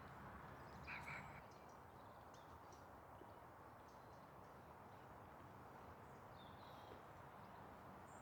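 Quiet woodland ambience: a faint steady hiss with a few short, high bird chirps, the clearest about a second in and another pair a little before the end.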